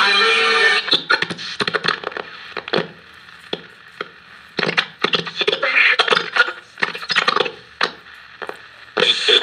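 National Panasonic 441 B transistor radio being tuned by hand across a band. Its speaker gives a burst of a station at the start, then choppy snatches of stations broken by crackles and static as the dial moves.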